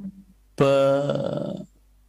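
A man's voice holding one steady-pitched vowel sound for about a second, a drawn-out hesitation mid-sentence in a lecture.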